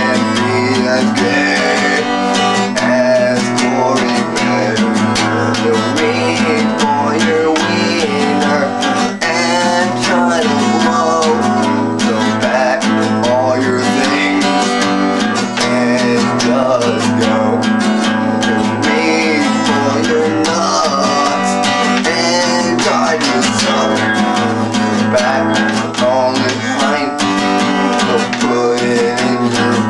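Acoustic guitar strummed steadily, a song being played.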